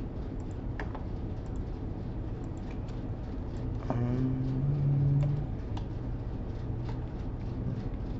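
Scattered clicks of a computer mouse and keyboard over a steady low background hum. A brief low hum, the loudest sound, comes about four seconds in and lasts about a second and a half.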